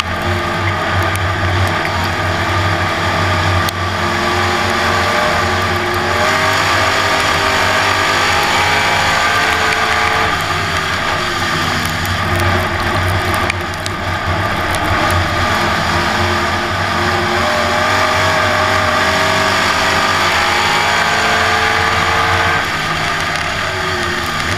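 Dirt track race car's V8 engine at racing speed, heard from inside the cockpit. It climbs in pitch along the straights and drops back twice as the driver lifts for the turns.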